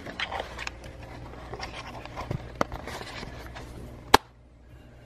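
Stir-fry vegetables and rice sizzling faintly under a lid in a pan, with small irregular crackles over a low steady hum. A single sharp click about four seconds in, after which the sound drops away.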